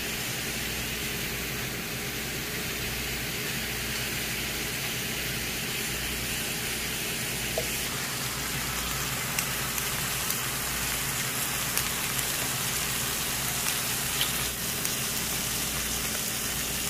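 Pork belly sizzling on a hot griddle pan: a steady frying hiss. A few light metal clicks come through now and then as tongs and scissors work the meat.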